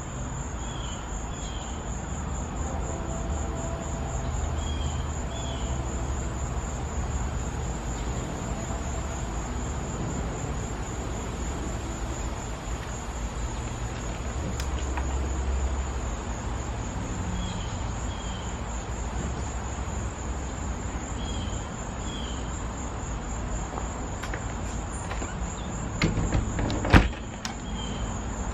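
Insects trilling steadily in a high, fast pulse over a low, distant traffic rumble. A faint double chirp recurs every few seconds, and there is a sharp knock near the end.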